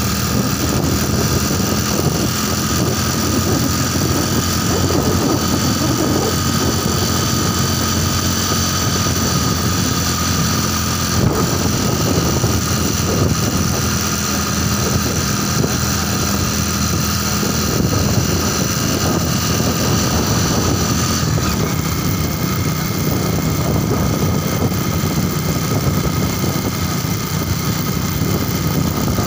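Motorbike engine running at a steady cruising speed, mixed with constant wind and road noise. Its tones drop a little about two-thirds of the way through.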